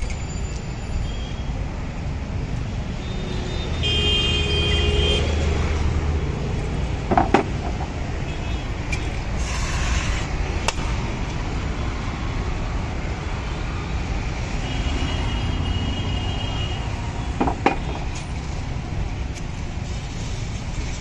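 Steady road traffic rumble with vehicle horns tooting about four seconds in and again around fifteen seconds. Two sharp knocks stand out, one about seven seconds in and one near seventeen seconds.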